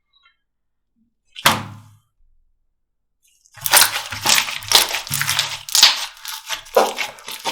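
Slime being squeezed and pressed by hand: one sharp squelch about a second and a half in, then, about halfway through, a quick, irregular run of sticky crackles and pops.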